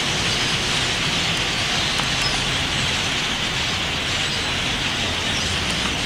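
A large flock of birds calling all at once, a dense, steady chattering din, with a low rumble underneath.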